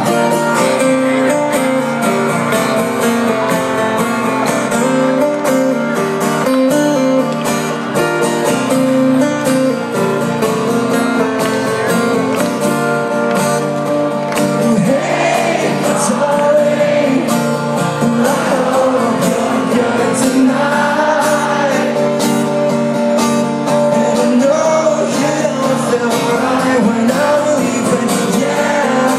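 Live acoustic rock performance: strummed acoustic guitar chords with a singer, the voice coming to the fore about halfway through.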